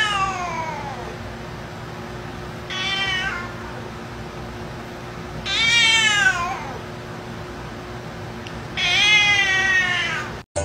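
Black-and-white cat meowing in long, drawn-out yowls, each one falling in pitch. The first is already tailing off at the start, and three more follow about three seconds apart, the second one short.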